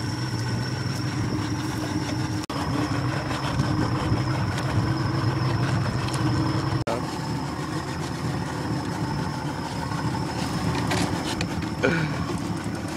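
Yamaha outboard motor idling steadily, a low hum with a thin high whine over it.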